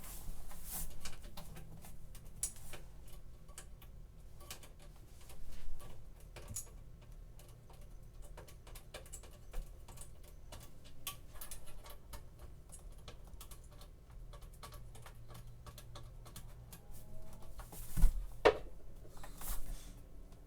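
Scattered light clicks and taps from a CPU cooler and its fittings being handled and fitted onto a motherboard, with a louder knock near the end.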